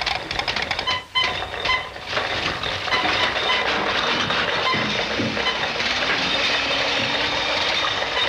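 Steady mechanical clatter and hiss from an early sound-cartoon soundtrack, with short high pings repeating several times a second, and a brief drop about a second in.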